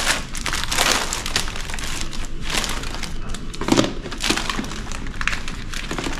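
Plastic food packets and paper sheets rustling and crinkling as they are handled, a dense run of irregular crackles.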